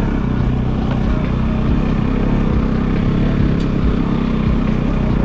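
Motorcycle engine running steadily at an even pitch as the bike is ridden slowly over a rough dirt track.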